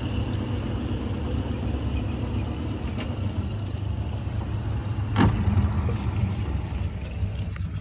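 Honda 150 hp four-stroke outboard motor running steadily, a low even hum, with a single knock about five seconds in.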